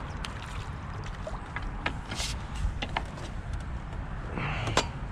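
Light water splashing and dripping as a small hooked fish is brought to hand at the surface, with scattered small clicks of fishing tackle being handled over a low steady rumble.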